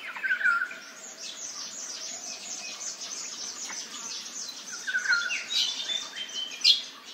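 Several forest birds chirping and calling at once, a dense chorus of short high notes. A lower phrase of falling notes comes twice, just after the start and about five seconds in, and one sharp call near the end stands out as the loudest.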